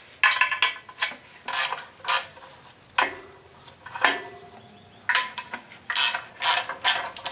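Hand ratchet wrench clicking in short, repeated bursts with metallic clinks, as the clutch pressure plate bolts are backed out.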